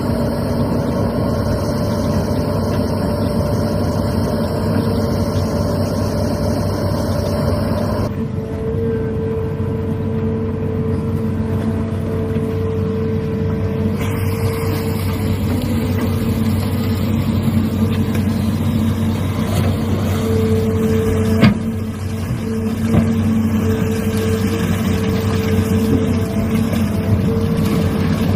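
Diesel engines of hydraulic excavators, among them a Hitachi Zaxis amphibious excavator on pontoon tracks, running steadily while digging in peat mud. There is a single sharp clank a little past the middle.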